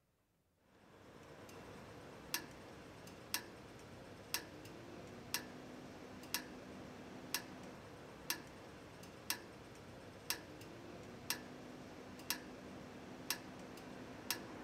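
Clock ticking, one sharp tick a second, starting about two seconds in, over a steady hiss of room tone that fades in within the first second.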